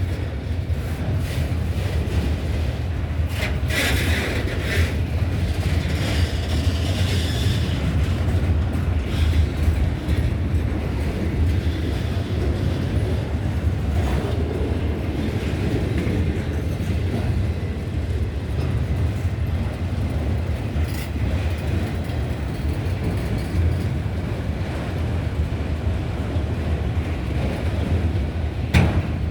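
Freight train cars rolling past with a steady low rumble and wheel clatter. A sharp clank near the end is the loudest moment.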